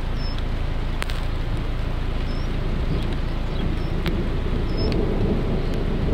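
Steady thunderstorm wind and rain noise, with a low rumble swelling past the middle and a few sharp ticks scattered through it.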